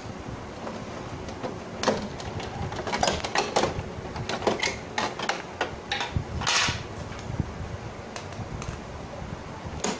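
Plastic clicks, knocks and a short scrape from an Epson L565 printer's scanner lid and inner parts being handled, a cluster of sharp clicks between about two and seven seconds in.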